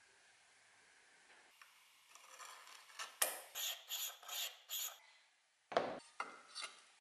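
Steel cleaver blank rubbed by hand with a small abrasive piece in quick back-and-forth scraping strokes, about five at two to three a second. A sharp knock comes a little before the end, then a few lighter scrapes.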